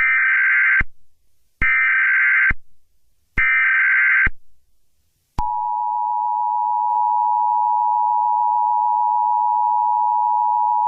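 Emergency Alert System tones. Three short bursts of SAME header data, a harsh digital warble, come about a second apart. About five seconds in, the steady two-tone EAS attention signal starts and holds.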